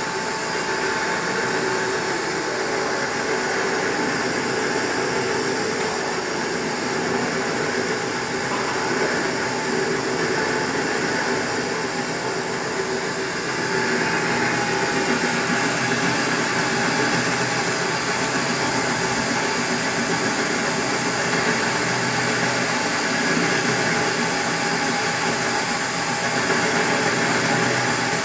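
WEISS WBL290F bench lathe running with its spindle at about 440 rpm, turning a metal workpiece: a steady drone of motor and gearing with several steady whining tones. It gets a little louder about halfway through.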